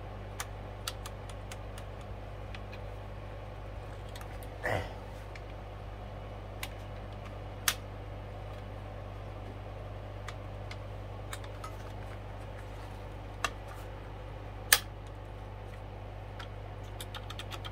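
Scattered clicks and taps from hands working on a record player's mechanism, the two loudest about eight and fifteen seconds in, over a steady low hum.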